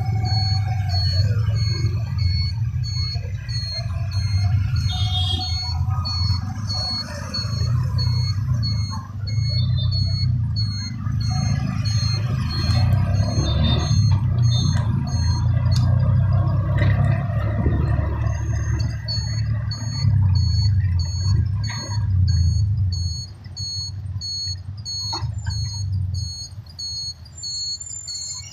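A vehicle's engine running with a steady low rumble, with a high-pitched beep repeating about twice a second over it. The rumble drops away after about three-quarters of the way through, while the beeping carries on.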